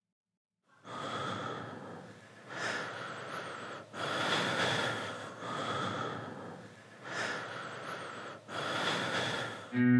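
A person breathing heavily: about six long, noisy breaths in and out, starting about a second in. Guitar music comes in right at the end.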